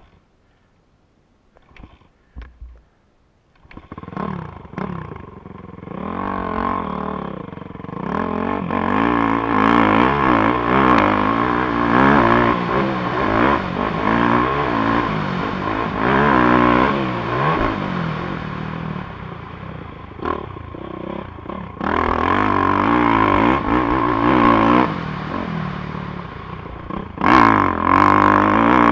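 Honda 450 single-cylinder four-stroke dirt bike engine under hard throttle, revving up and falling back as it is ridden. It comes in about four seconds in, after a few faint knocks, and eases off briefly a little past two-thirds of the way through before pulling hard again.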